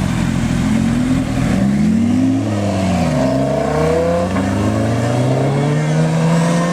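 Performance car engine revving: the pitch rises and drops back about two seconds in, then climbs steadily as the car accelerates.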